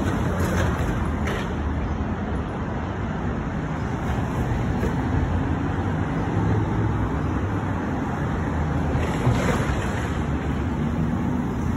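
Steady city street traffic noise, a low rumble of passing cars and other vehicles.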